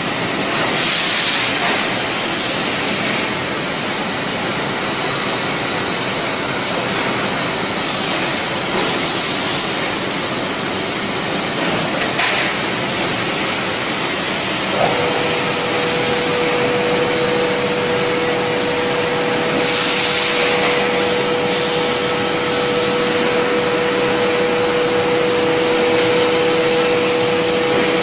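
Particle board production line machinery running: a loud, steady noise, with two short bursts of hiss, one near the start and one about two-thirds through. A steady whine comes in about halfway and holds.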